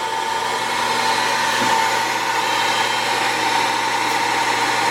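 The horizontal spindle drive of a Sharp VH-3 combination milling machine running steadily under power, a motor hum with a steady whine from the spindle gearing.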